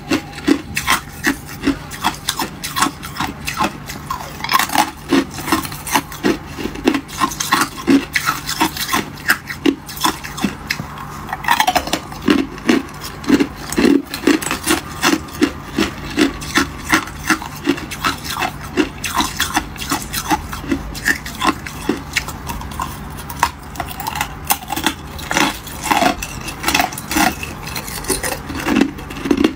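Thin ice cubes being bitten and chewed: a steady run of crisp, short crunches, a couple a second.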